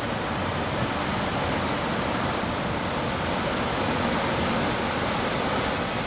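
JR Central 300 Series Shinkansen train running into the station platform: a steady rush of wheels on rail and moving air, growing slightly louder as the train comes alongside, with a steady high whine over it.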